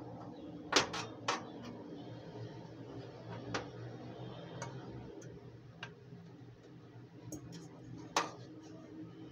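Kitchen handling sounds as pieces of butter are put into a non-stick frying pan: a few sharp clicks and taps, the loudest about a second in and just after eight seconds, over a low steady hum.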